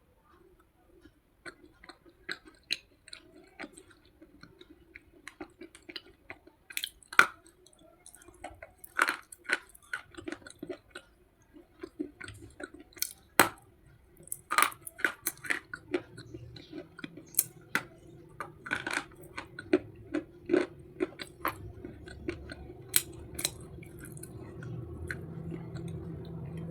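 Slate pencils being bitten and chewed close to the microphone: a run of irregular sharp, brittle crunches, several a second at times, over a faint steady hum that grows louder toward the end.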